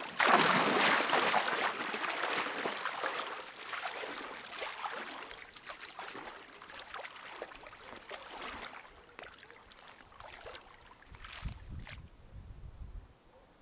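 Water splashing and sloshing, dense and loud at first and thinning out over several seconds. A low rumble comes in near the end.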